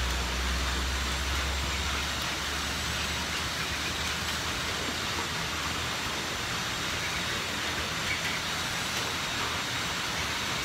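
Heavy rain pouring steadily onto a flooded street, a dense even hiss. A low rumble underlies it for the first two to three seconds, then fades.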